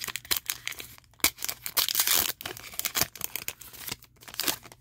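Crinkly foil wrapper of a trading-card pack being torn open and crumpled in the hands, with a run of crackling clicks and a longer rustling tear about two seconds in.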